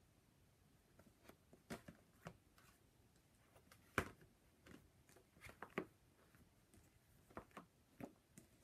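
Softcover paper doll books being handled: scattered soft taps, slaps and rustles as books are lifted off a stack and set down, the sharpest one about halfway through.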